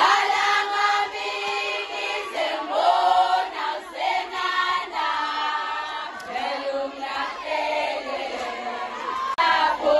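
A group of voices singing together in a chant-like choral song.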